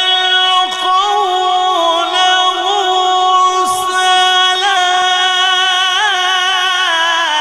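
A male qari's voice in melodic Quran recitation, holding one long ornamented note with small wavers, heard through a sound system. The pitch steps down slightly near the end.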